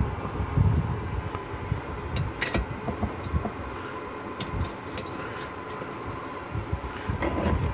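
Light scattered metallic clicks and taps of a new output-shaft bushing being lined up and set by hand into a 4L60E transmission tailhousing, over a steady shop hum with occasional low handling thumps.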